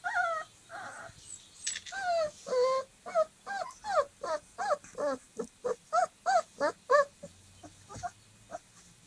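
Dogo Argentino puppy, about 25 days old, whining in a quick series of short cries that rise and fall in pitch, about three a second, tailing off into fainter cries near the end.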